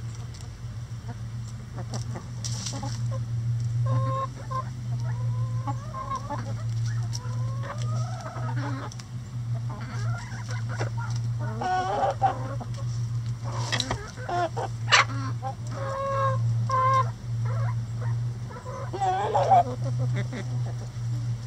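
A flock of chickens clucking and calling, several birds at once, with short pitched calls and some rising calls, over a steady low hum. A few sharp taps come through in the second half.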